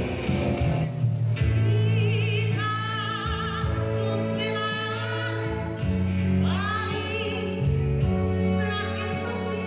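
Live pop-rock band playing a song with a female lead vocalist. She holds long notes with a wide vibrato over steady bass and sustained keyboard chords.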